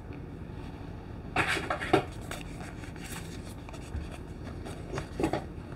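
Small paperboard accessory box being handled and worked open: short rustles and scrapes of cardboard about a second and a half in, a few light clicks after, and more rustling near the end.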